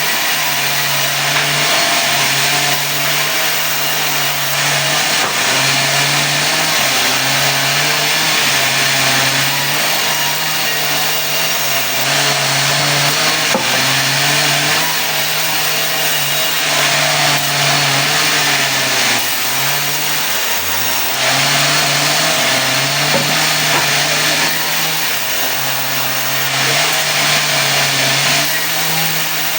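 Sawmill blade cutting mahogany: a steady hiss of the cut over the hum of the mill's motor. The motor's pitch drops and recovers every second or two as it takes the load, with one deeper dip about twenty seconds in.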